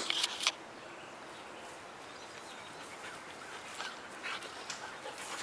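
Seven-month-old husky puppy making a few short, faint vocal sounds, with a brief louder noise and two sharp clicks right at the start.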